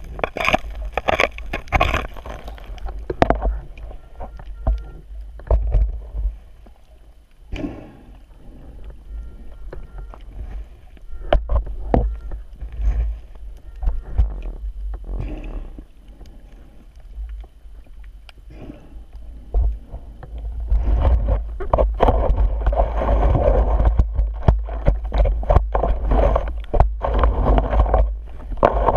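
Underwater noise heard through a GoPro's waterproof housing: a muffled low rumble of moving water with scattered knocks and clicks. It grows louder and busier about two-thirds of the way through, as sand is churned up beside the metal detector's coil.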